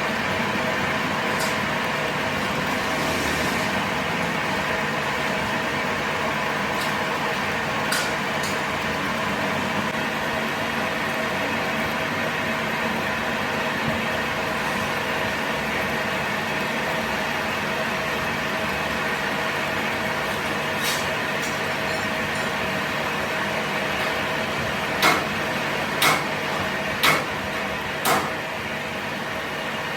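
A workshop machine runs with a steady mechanical hum and whine. Near the end, four sharp metal hammer strikes come about a second apart.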